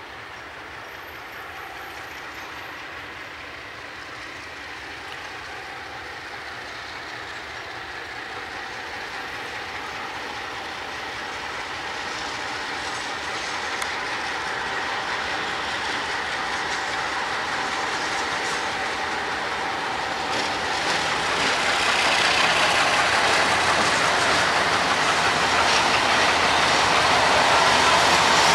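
Freight train hauled by several MLW diesel locomotives approaching, its engine and wheel noise growing steadily louder, with a steady whine through the middle. About three quarters of the way through, the rolling noise becomes much louder as the locomotives draw close.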